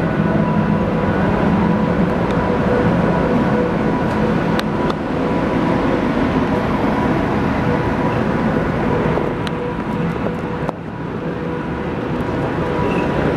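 WAP-7 electric locomotive moving slowly past at close range: a steady low rumble with a constant hum running under it, and a few faint clicks.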